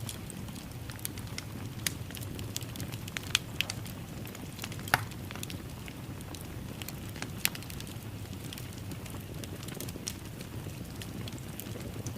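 Wood fire burning in a fireplace: a steady low rush with irregular sharp crackles and pops, the loudest pop about five seconds in.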